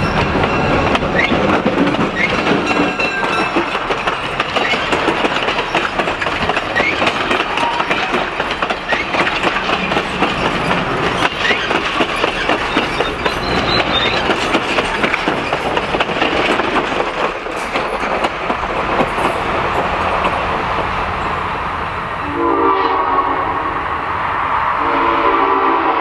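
EMD GP7 diesel locomotive passing close, then its passenger cars rolling by with steady wheel clatter over the rail joints. About 22 seconds in, the locomotive's Nathan Airchime M5 five-chime air horn sounds in two long blasts.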